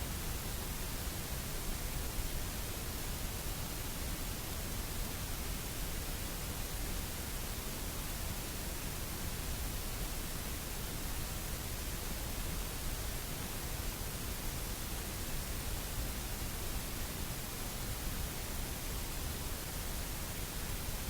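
Steady hiss of static noise, even and unchanging, with no other sound over it.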